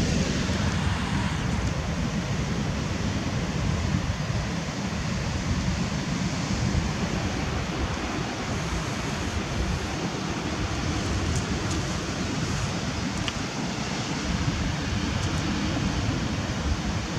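Wind buffeting the microphone: a steady rushing with a gusty low rumble.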